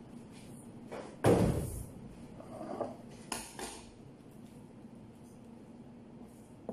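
A meat cleaver chopping once, hard, through a joint of meat onto a cutting board about a second in, followed by a few lighter knocks and clinks.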